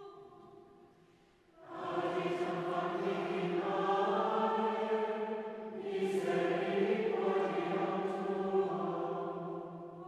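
A choir of monastic voices singing liturgical chant. A faint sung line gives way about one and a half seconds in to the full choir, which sings two long phrases and fades near the end.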